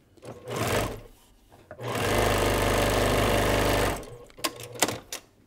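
Baby Lock Accomplish sewing machine stitching a quarter-inch seam: a short run of about half a second, then a steady run of about two seconds that stops abruptly. A few short clicks follow near the end.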